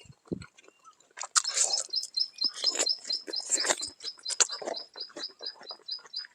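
A bird calling in a steady series of high, evenly spaced chirps, about four a second, starting about a second and a half in. Under it, someone chews and crunches food close to the microphone.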